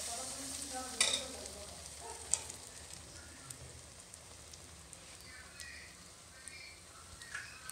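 Ladleful of rice-flour batter sizzling in hot oil in an iron karahi as a poa pitha fries, the sizzle slowly easing off. A sharp click sounds about a second in and another a little after two seconds.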